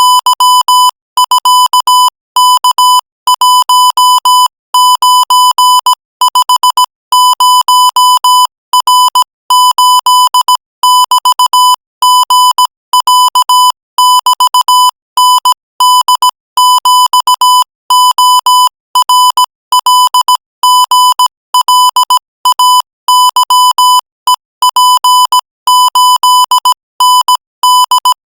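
Morse code sent at 20 words per minute: a single buzzy, high-pitched electronic beep keyed on and off in quick dots and dashes, with short gaps between letters and longer gaps between words.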